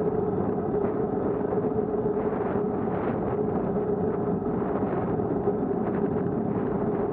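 Steady wind and road noise on a moving action camera's microphone, with a constant mid-pitched hum running underneath.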